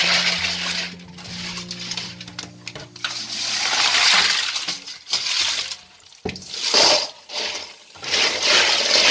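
Tap water running and splashing into a sink bowl while blood cockles are stirred and poured, their shells clinking and clattering against each other and against the bowl and colander. The water noise comes and goes in surges, with a sharp click about six seconds in.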